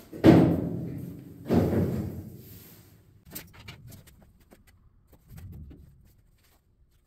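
Two heavy, ringing thuds of sheet steel on a 1953 Chevy truck's cab, about a second apart, each dying away over about a second. A few light knocks and clicks follow.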